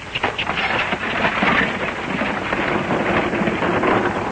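A team of horses pulls a wagon away at speed: a dense clatter of hoofbeats and rattling wheels.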